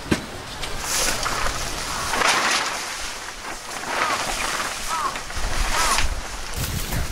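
Tent fabric and a plastic groundsheet rustling and swishing as they are handled and dragged, in several surges, with a sharp click just after the start. A few short high squeaks come in the second half.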